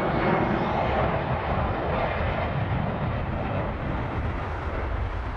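Jet airliner's engines at high power as it rolls fast along the runway: a steady, dense rumble of jet noise that eases off slightly toward the end.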